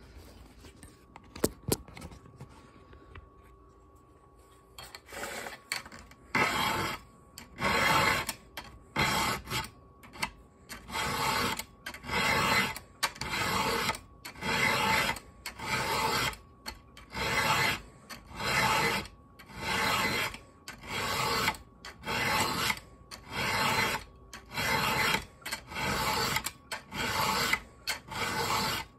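Round hand file sharpening the cutters of a .404 semi-chisel chainsaw chain: after a sharp click and a few quiet seconds, a steady run of rasping push strokes at a little under one a second and a half. The cutters are dull and chipped from hitting rocks.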